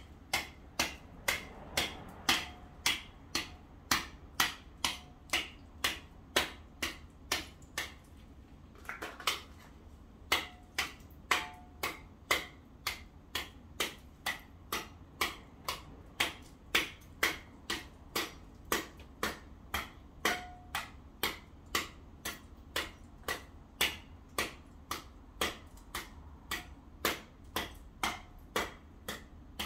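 Sharp, regular knocks, about one and a half a second, of a hand tool chipping at icy snow on the pavement, with a short pause about eight seconds in.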